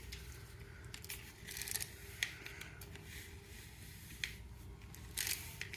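Scattered sharp clicks and short rustles of objects being handled, the sharpest click a little past two seconds in, over a faint steady low hum.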